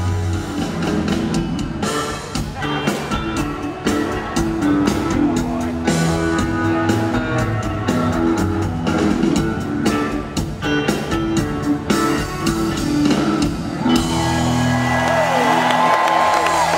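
Live rock band of electric guitars, bass, drum kit and keyboard playing loudly with a driving drum beat. Near the end the drums stop and the band holds a final chord while the crowd cheers and whistles.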